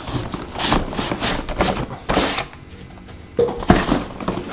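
Packaging being handled: a run of short rustles and scrapes of cardboard and plastic as power cables are lifted from the box, with a brief lull about two and a half seconds in.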